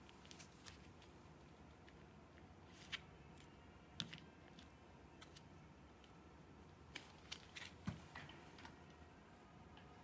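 Near silence: quiet indoor room tone with a few scattered faint clicks and taps.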